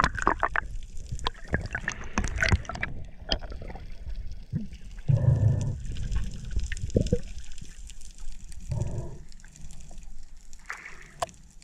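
Underwater sound of a diver swimming with a camera: scattered sharp clicks and knocks, then two low, muffled whooshes of water moving past, the first about five seconds in and the second near nine seconds.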